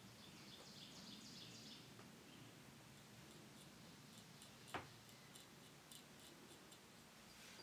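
Faint, quick scraping strokes of a small knife blade being honed on a sharpening stone, then a single sharp click a little past the middle.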